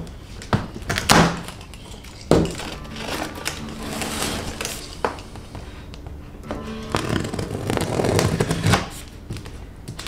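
Knife cutting open a cardboard shipping box: a few sharp snaps and knocks as the plastic strapping band is cut and handled. In the second half comes a longer rasping scrape as the blade slices along the packing tape on the cardboard.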